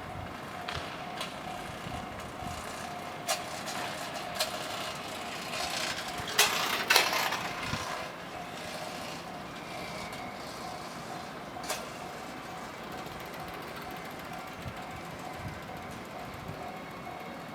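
Japanese level-crossing warning bell ringing in a steady repeating ding. Over it, train wheels clack over the points, loudest in a burst of clacks about seven seconds in.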